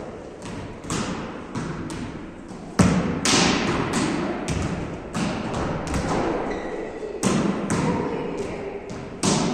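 Volleyballs being struck in forearm passes and sets and bouncing on a wooden floor: a string of irregular sharp smacks and thuds that ring on in a large, echoing gym hall, the loudest a little under three seconds in.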